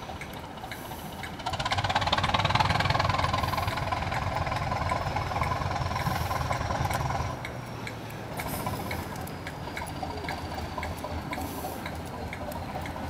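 Heritage diesel train engine running. It gets sharply louder about a second and a half in, with a faint whine that climbs and then slowly falls, and drops back to a lower steady run a little past the middle.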